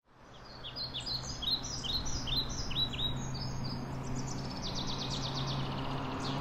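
Birds chirping: a run of quick chirps that rise and fall, then a fast trill of short notes, over a steady low hum. The sound fades in at the start.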